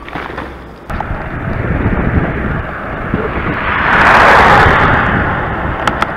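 Loud rushing wind noise on the microphone of a moving bicycle. It jumps up about a second in and swells to its loudest around four seconds in.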